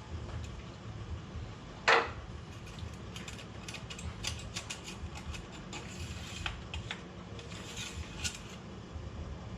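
The engine-oil dipstick of a 2002 Ford Focus being handled with the engine off: one sharp scrape about two seconds in, then a run of small metal clicks and rattles. A low steady hum lies underneath.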